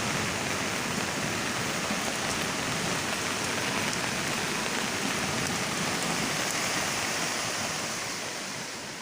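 Steady hiss of water, as of rain falling or floodwater running, even throughout and fading away near the end.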